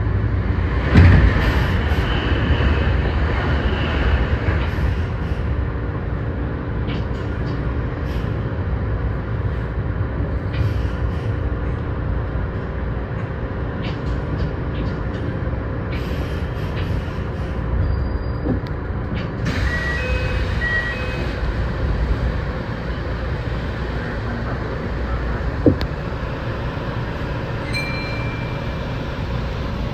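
Kintetsu 6820 series electric train heard from its front, a steady rumble of running gear and wheels on rail, with a sharp loud burst about a second in. A few high electronic beeps sound near the end.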